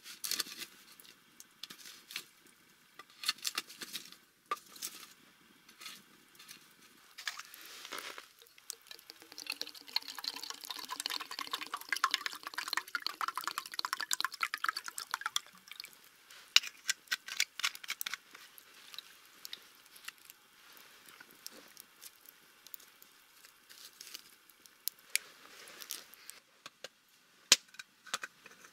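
Liquid poured from a bottle into a metal mug beside a campfire: a steady pour lasting about six seconds, starting about a third of the way in. Scattered sharp crackles and clicks come before and after it.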